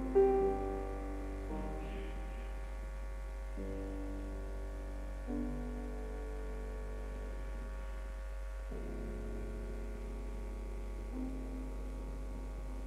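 Solo piano playing slow, sustained chords, a new chord struck every one to three seconds, from an old recording with a steady low mains hum beneath.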